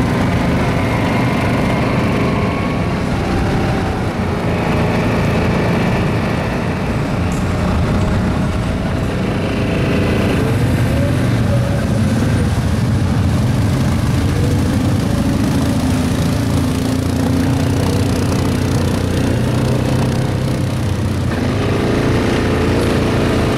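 ATV engines running under load. The pitch rises and falls several times as the throttle is worked, and the revs pick up again near the end.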